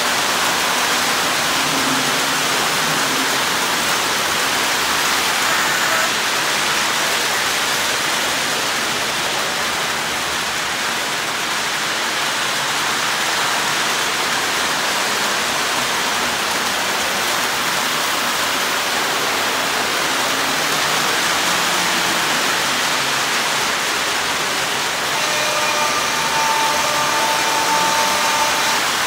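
Lionel toy trains running on the layout's track: a steady rolling rush, with a few steady tones joining in near the end.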